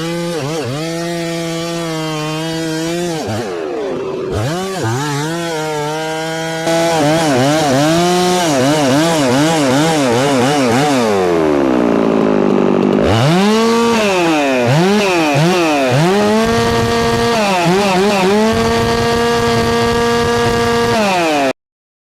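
Two-stroke chainsaw cutting through a large pecan log, its engine pitch swinging up and down as it bogs under load and recovers. The sound drops out completely for about a second near the end.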